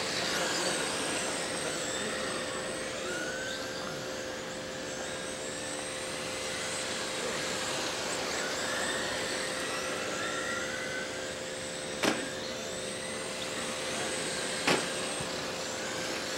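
Radio-controlled race cars circling a dirt oval, their motors whining high and rising and falling in pitch as they go through the turns, over a steady hum. Two sharp knocks stand out, about twelve seconds in and again some three seconds later.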